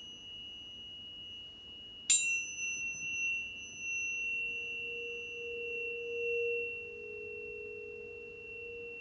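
Planetary tuning forks struck twice, once at the very start and again about two seconds in, each strike leaving a high, pure ringing tone with brief shimmering overtones that die away. About four seconds in, a second, lower fork tone swells in and wavers as it rings on beneath the high one.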